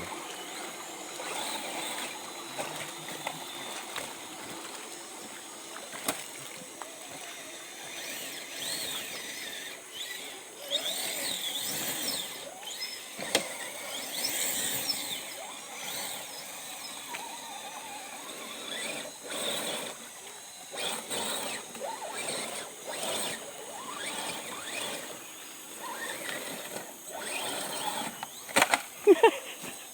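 Electric motor and gears of an RC rock crawler whining in short spurts as it drives through water, with water splashing.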